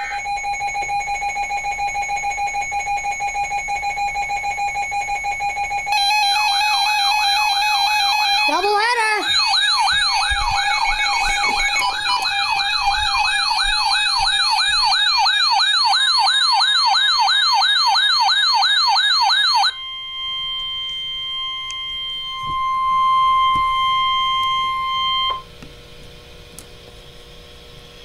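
Weather alert radios sounding their warning alarms. A steady electronic beep-tone is joined a few seconds in by a fast warbling siren-like alarm. The warble cuts off about two-thirds of the way through, and a steady single-pitch attention tone of the NOAA Weather Radio warning kind follows for about five seconds before the sound drops away.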